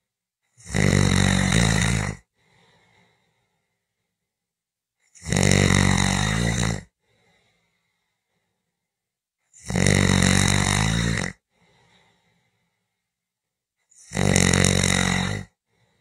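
A person snoring: four loud snores, each about a second and a half long, coming roughly every four and a half seconds, with a faint, softer sound just after each.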